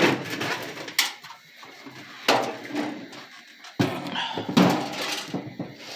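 Knocks and clatter of objects being handled and moved about, about five sharp sounds roughly a second apart.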